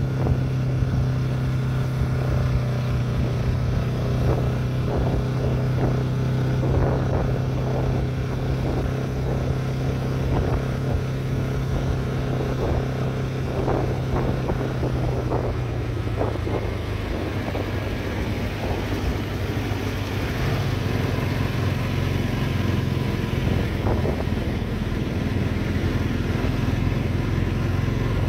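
Motorcycle engine running steadily under way, heard from the rider's seat. About two thirds of the way in, the engine note drops and wavers as the bike slows behind a truck, then settles again.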